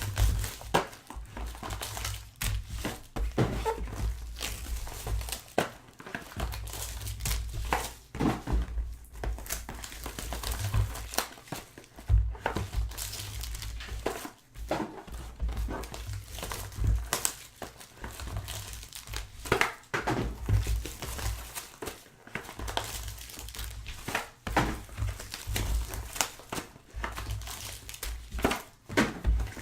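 Plastic wrapping crinkling and tearing as trading card packs are opened and handled, with irregular crackles and soft bumps against the table.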